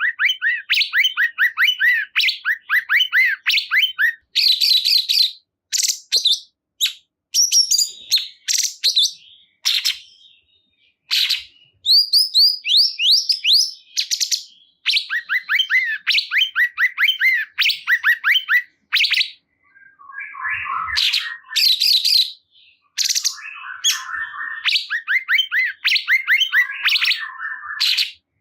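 A cungkok songbird singing loudly and almost without pause: fast runs of rising chirps, whistled notes and trills, with a few short breaks. This is the kind of lively song played to caged cungkok birds to stir them into singing.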